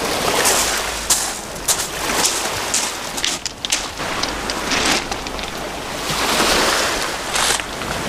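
Small waves surging in and draining back over a pebble shore, swelling and easing several times, with scattered sharp clicks across the wash.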